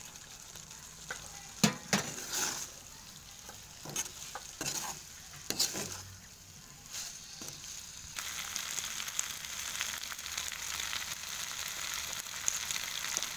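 Fried cauliflower florets stirred into thick sauce in an iron kadai with a ladle: scattered scrapes and knocks of the ladle against the pan, then from about eight seconds in a steady sizzle of the sauce frying.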